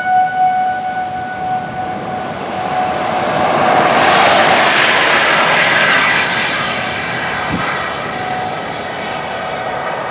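Outdoor tornado warning siren's steady wail fading over the first couple of seconds as it dies down or turns away. A passing vehicle's rushing noise swells to a peak near the middle and eases off.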